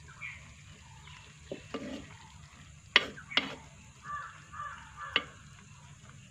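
Wooden spoon stirring cauliflower curry in a clay pot, knocking sharply against the pot about five times. Two short crow caws in the background about four seconds in.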